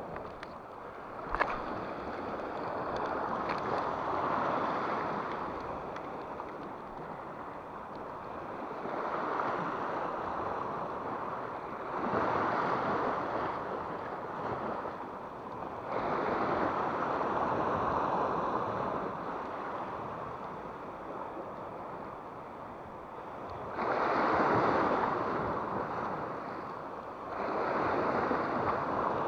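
Sea waves washing against shoreline rocks, surging and ebbing every few seconds. A single sharp click about a second and a half in.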